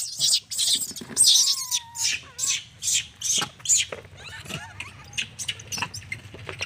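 Caged rhesus macaques calling: a quick run of short, shrill squeaks and screeches, with one drawn-out whistle-like call about a second and a half in. The calls grow fainter over the last couple of seconds.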